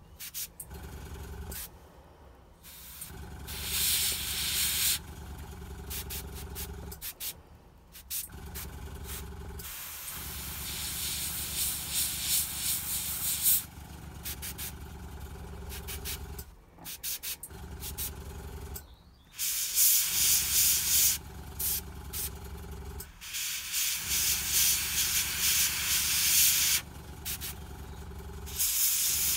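Airbrush spraying in several bursts of hiss lasting a few seconds each, over the steady hum of a small air compressor that drops out briefly a few times.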